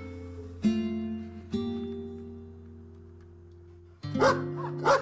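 Acoustic guitar background music: two strummed chords ring out and fade. Near the end a German shepherd barks a few times through it.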